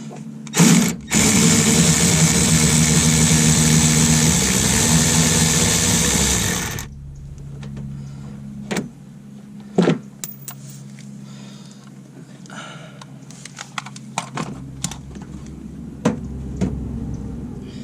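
A power tool with a 10 mm socket whirs in a short blip, then runs steadily for about six seconds while backing out a bolt, and stops. A few sharp clicks and knocks of handling follow.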